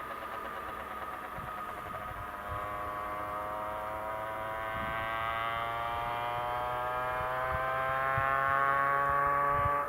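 Diamond DV20 Katana's propeller engine running, growing louder as its pitch rises steadily over several seconds, then cut off abruptly at the very end.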